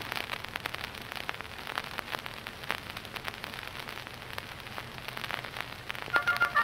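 Surface noise of an old Vitaphone disc recording: dense crackle and clicks over a steady hiss in the lead-in groove before the next song. Music with short repeated notes starts near the end.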